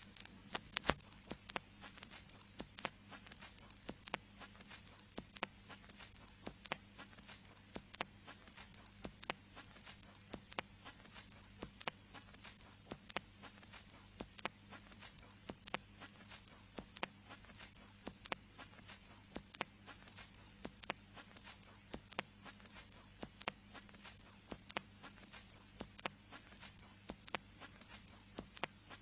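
Surface noise of a 45 rpm vinyl record playing on with no programme, likely in the run-out groove after the story ends: faint crackle with frequent sharp clicks and a low steady hum.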